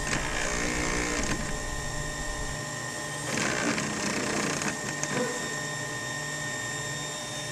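Babyplast micro-injection molding machine with its sprue separator running: a steady hum with a thin whine, and two short spells of rougher hissing noise, one at the start and one around the middle.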